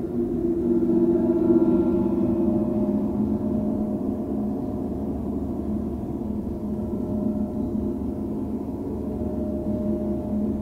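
Two metal musical sculptures, a tall wire-frame form and a box-shaped one, played together with sticks. They give sustained ringing tones at several pitches at once that swell about a second in and keep sounding.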